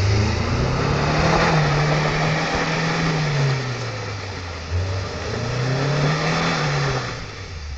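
UAZ Pickup 4x4's engine running under way, its revs rising and falling twice, with a brief jump in pitch and loudness a little under five seconds in.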